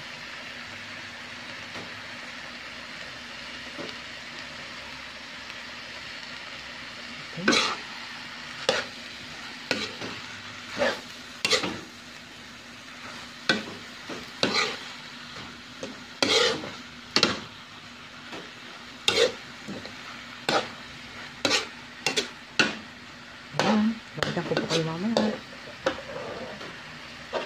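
Sliced cabbage sizzling in a wok as a metal spatula stirs it. From about seven seconds in, the spatula scrapes against the pan in sharp strokes roughly once a second, bunching up near the end.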